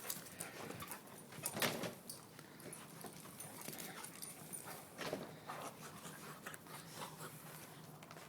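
A dog panting, with scattered short clicks and a couple of louder brief bursts of noise.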